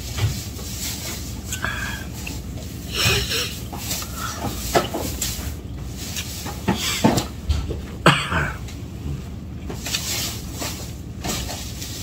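Close-up eating sounds from roast duck and rice eaten by hand: chewing and lip smacking, with a few short throat sounds about halfway through.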